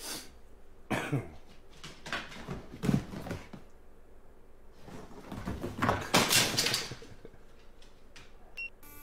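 Short, rough vocal bursts in three spells: one about a second in, a longer run around two to three seconds, and the loudest a little past the middle. A brief high tone sounds near the end.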